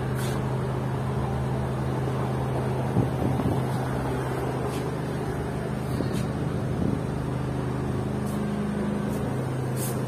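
Street traffic ambience: a steady low hum with a few faint clicks.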